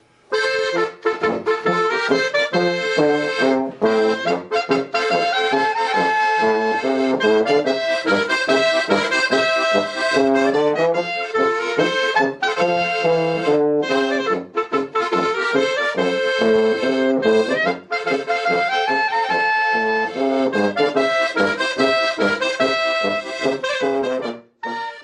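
A small folk band plays a traditional tune together, the accordion leading, with a clarinet and a brass horn.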